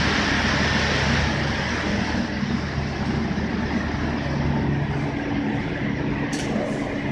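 Steady drone of a Ro-Ro passenger ship's machinery, with several held low hum tones over a noisy rush. A brief click comes about six seconds in.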